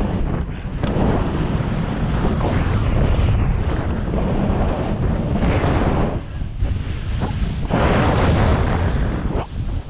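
Wind buffeting a GoPro's microphone during a fast downhill ski run, a continuous low rushing rumble. Several times, surges of hissing scrape rise over it as the ski edges carve across groomed snow on each turn.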